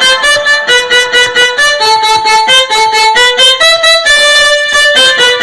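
Music: an instrumental break in a Brazilian funk song, a lead melody of short notes with the bass beat dropped out, which comes back just after.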